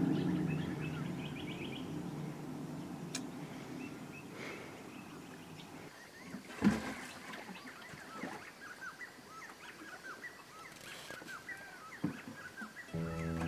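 A low engine drone fades away over the first few seconds. Then birds call in many quick, short chirps, with a single thump about halfway through.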